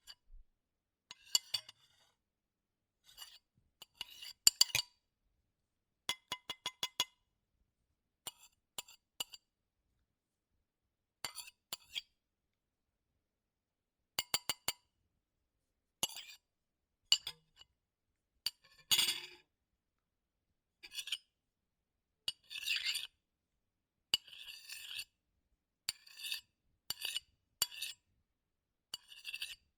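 Metal spoon clinking and scraping on a ceramic plate, like eating: short separate clinks with a brief ring, some in quick runs of three to five, with longer scrapes in the second half and silence between.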